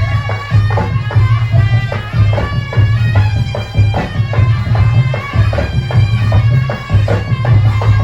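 Live Javanese barongan folk music: a shrill reed shawm plays a wavering melody over steadily beaten drums with a heavy, pulsing low beat.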